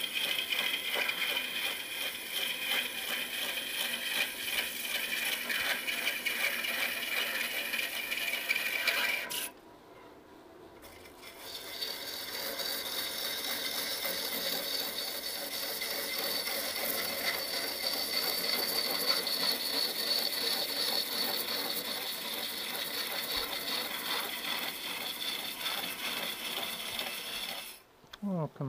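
Turning gouge cutting the outside of a large wooden vessel spinning on a lathe: a steady cutting noise that breaks off for about two seconds about a third of the way in, then resumes and stops near the end.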